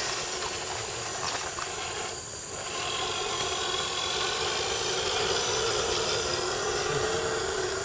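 Electric motor and gear drive of an Axial SCX10 Dingo RC scale crawler running with a steady whine as it crawls through a muddy puddle.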